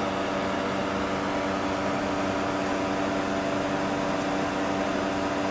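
Steady machine hum made of several even, unchanging tones, like a fan or air-conditioning unit running.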